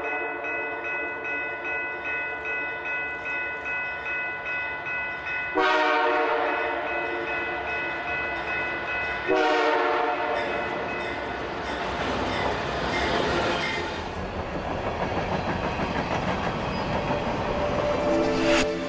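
Train horn sounding in long held blasts, with fresh blasts about five and a half and nine seconds in, followed by the rumble and rail clatter of a passing train.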